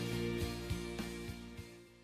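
Background music with held chords and struck notes, fading out near the end.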